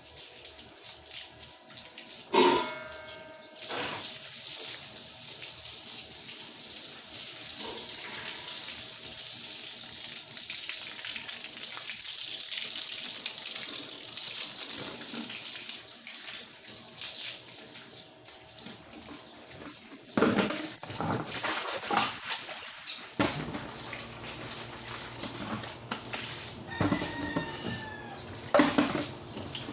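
Water running from a garden hose and spraying onto tiled paving, a steady hiss through the middle of the stretch. Several sharp knocks and clatters stand out, one a few seconds in and a cluster in the last third.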